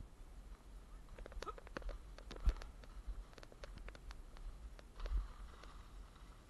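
An irregular run of light, sharp clicks and clacks, over a low rumble on the microphone.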